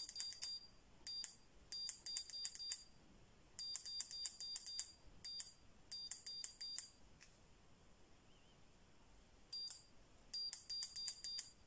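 Short, high electronic beeps from a digital torque wrench's buttons being pressed repeatedly to set the target torque to 350 Nm, coming in quick runs with brief gaps and a longer pause in the middle.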